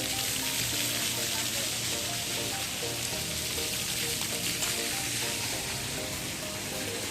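Steady hiss of falling and splashing water from a large water fountain, with music playing along with it.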